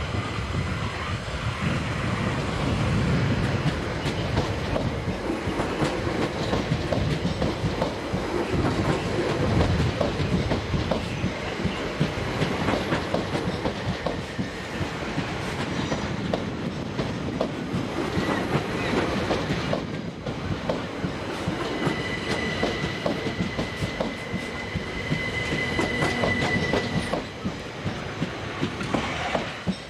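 Gatwick Express Class 387 Electrostar electric multiple unit departing and running close past, its wheels clacking over rail joints and pointwork. A steady high squeal sounds for several seconds in the second half.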